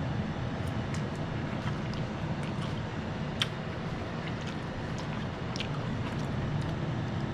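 Steady low background hum, with a few faint light clicks and one sharper click about three and a half seconds in.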